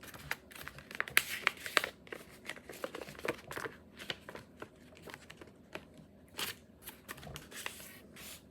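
Sheet of printer paper being folded and creased by hand: irregular crinkling rustles and sharp crease clicks as the wings of a paper airplane are folded down.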